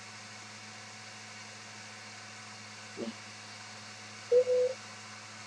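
Quiet room tone with a steady low electrical hum. A short faint murmur comes about three seconds in, and a brief steady tone in two parts a little after four seconds.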